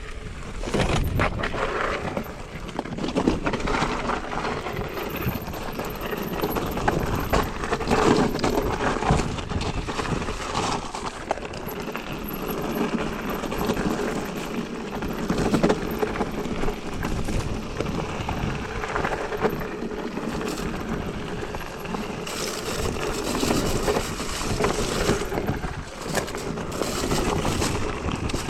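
Mountain bike being ridden on a dirt trail: continuous tyre noise with irregular clattering from the bike over bumps, and wind on the microphone.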